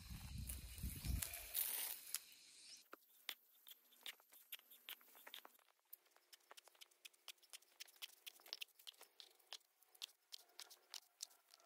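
Faint crunching and rustling of boots and a handled bucket on freshly tilled soil, loudest in the first two seconds, then sparse, quiet ticks and crackles.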